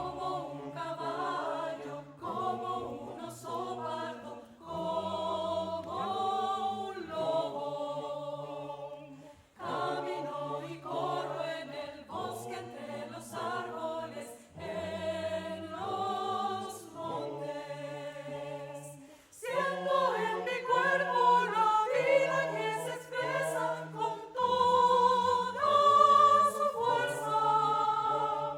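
A choir singing in several parts, in phrases broken by short breaths, and noticeably louder for the last third.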